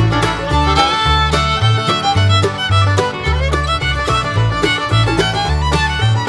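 Background music: an upbeat tune led by fiddle over a bouncing bass line.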